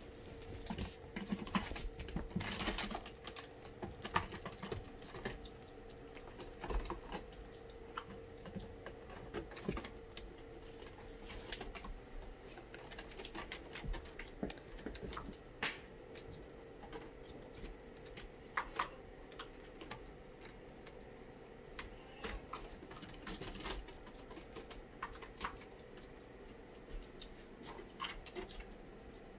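Irregular light clicks, taps and scratches of Balinese kittens' claws and paws on a sisal scratching post and a wooden floor as they play and climb, over a faint steady hum.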